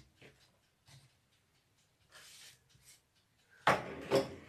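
Quiet handling on a kitchen worktop: a faint brushing hiss, then a sudden loud knock or clatter near the end, as of something set down on the counter.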